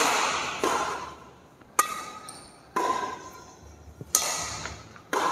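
Shuttlecock hit back and forth with badminton rackets in a rally: six sharp string strikes about a second apart, each ringing on in the hall's echo.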